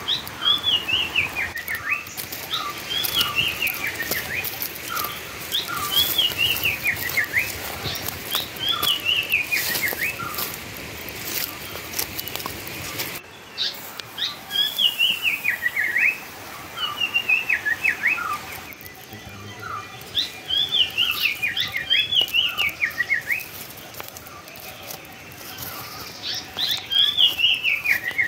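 A bird singing a phrase that slides down from high to lower pitch, repeated every second or two, with short lower notes in between. Scattered sharp clicks run underneath.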